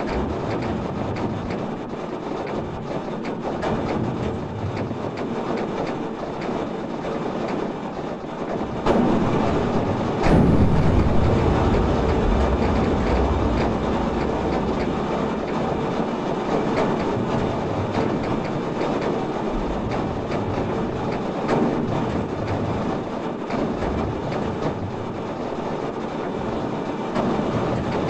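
Sonified earthquake data from Japan: a dense, continuous crackling rumble made of many small pops, one for each quake, that swells sharply about ten seconds in as the seismicity intensifies.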